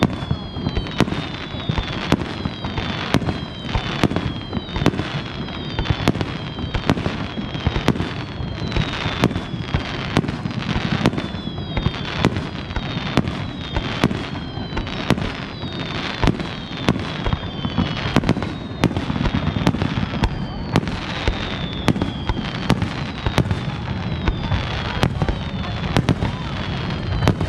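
A continuous barrage of aerial firework shells launching and bursting in quick succession, with sharp bangs throughout. Whistles falling in pitch sound again and again over the bursts.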